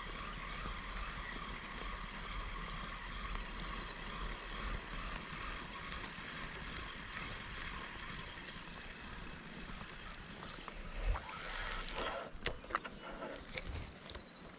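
Spinning reel being cranked steadily, its gears whirring as a lure is retrieved, then a few knocks and rustles from handling the rod near the end.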